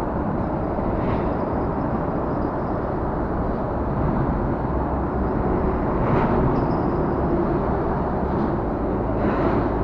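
Lorries and other traffic crossing the bridge overhead, a steady, noisy rumble heard from beneath the bridge, with a few brief louder passes.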